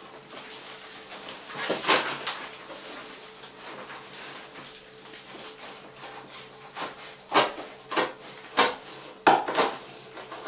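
Cardboard packaging being cut with a knife and pulled apart by hand: a couple of short scraping rips about two seconds in, then a quick run of five or so sharp rasps and crackles in the second half.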